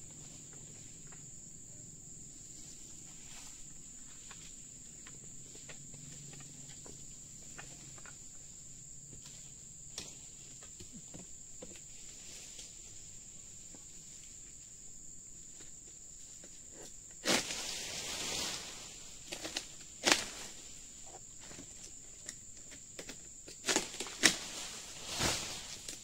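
A steady high-pitched insect drone throughout. From about two-thirds of the way in come bursts of rustling and sharp knocks, which fit a harvesting pole being raised through the palm fronds.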